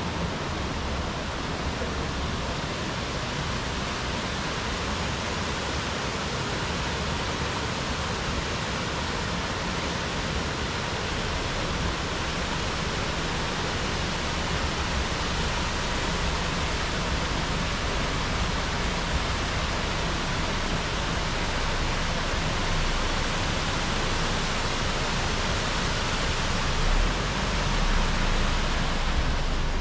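Steady rush of a fast-flowing mountain stream, growing a little louder.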